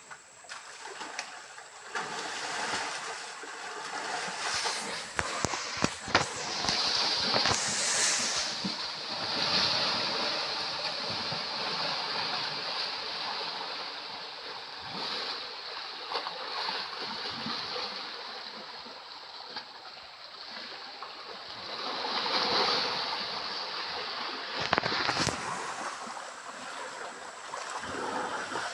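Two elephants fighting in a muddy stream, churning and splashing the water, with heavy splashes about five seconds in and again near the end. A steady high hiss runs through the middle.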